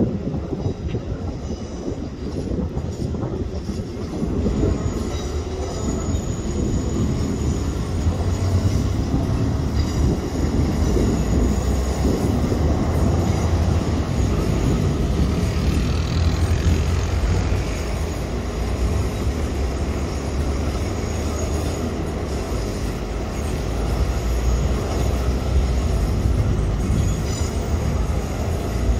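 A Line 4-Yellow electric metro train rolling slowly past on depot track, its wheels and running gear giving a continuous low rumble. A thin, high wheel squeal comes and goes over it.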